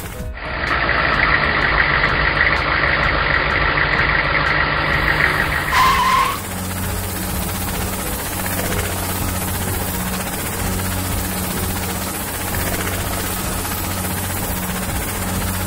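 Steady engine hum of a cartoon vehicle sound effect. For the first six seconds a louder, higher rushing sound lies over it and ends in a short tone, then the hum carries on alone like an idle.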